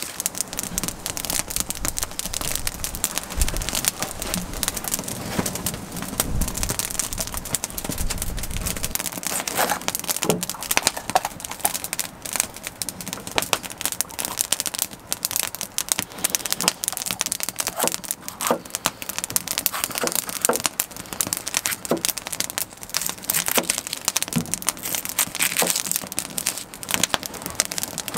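Campfire of dry twigs and kindling crackling and popping, with a low rumble under it for the first several seconds. Later, sharper separate knocks of a knife cutting food on a wooden plank table sound over the crackle.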